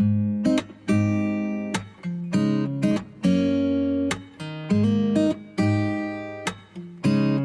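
Acoustic guitar strumming chords as the intro of a pop song. It starts suddenly out of silence, with a fresh strum about every half second to a second.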